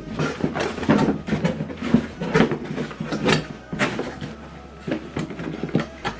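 Handling noises: an irregular series of knocks, clicks and light rattles as objects are picked up and set down.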